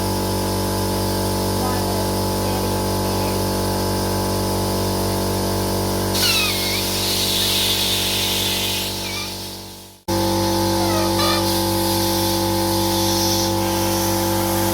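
Air compressor running with a steady hum. Compressed air blasts out of an air nozzle with a hiss for about three seconds in the middle, used to blow a handlebar grip loose, and there is a shorter, fainter hiss later. Everything cuts out abruptly about ten seconds in, then the hum resumes.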